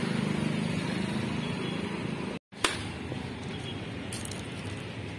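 Steady road traffic noise with an engine hum in the first couple of seconds. The sound drops out completely for a moment about halfway through, then comes back with a sharp click and the traffic noise runs on more quietly.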